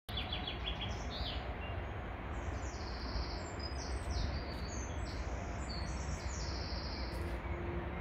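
Songbirds singing: a quick run of repeated notes at the start, then overlapping high, thin trilled phrases, over a steady low outdoor background rumble.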